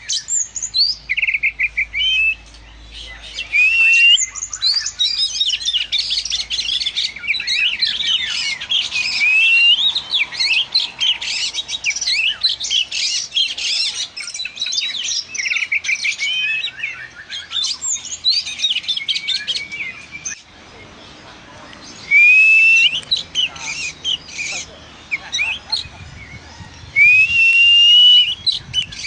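Oriental magpie-robin (kacer) in full song: a long, fast, varied run of chirps and whistled phrases. In the last third it turns sparser, with a few loud rising whistles.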